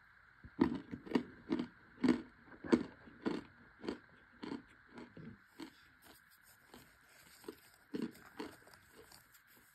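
A person chewing dry chunks of cornstarch, crunching about twice a second, the crunches fading after about five seconds, with a louder crunch near the end.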